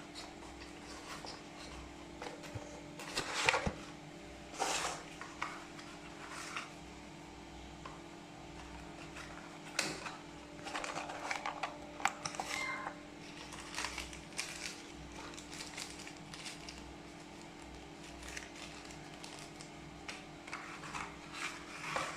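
Hands handling earbud packaging and the earphones: scattered rustles and light clicks over a steady low electrical hum.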